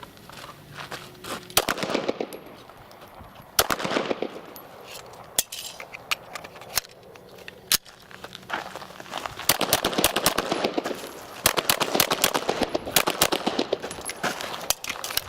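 Carbine and handgun gunfire on a training drill: scattered single shots at first, then dense rapid strings of shots from about nine seconds in to near the end.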